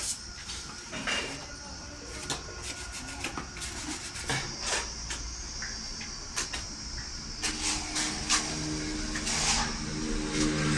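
Scattered clicks, knocks and scrapes of tiling work in a bare room. Background music with sustained notes comes in about seven and a half seconds in.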